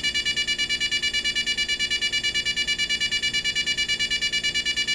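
Equity 75904 LED digital alarm clock's alarm going off: a loud, high-pitched electronic beep pulsing rapidly, about eight beeps a second.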